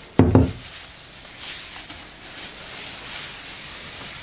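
A plastic-gloved hand rubbing paraffin oil over a wooden cutting board, making a steady soft rustling hiss. A short spoken word comes right at the start and is the loudest sound.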